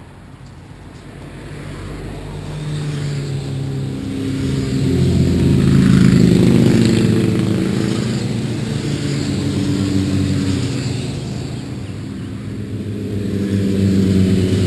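A motor engine's low hum with a steady pitch, swelling louder about six seconds in and again near the end.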